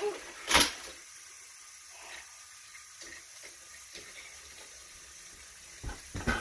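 Plastic toy train track and tower being knocked while handled: a sharp clack about half a second in and two short knocks near the end, with quiet between.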